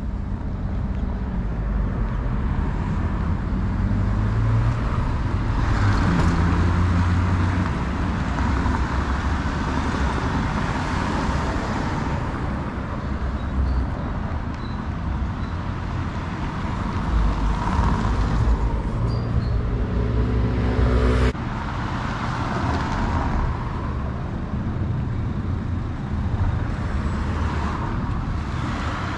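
Road traffic: cars driving past one after another, engine rumble and tyre noise swelling and fading. About two-thirds of the way through, one engine climbs in pitch as it accelerates, and the sound breaks off abruptly.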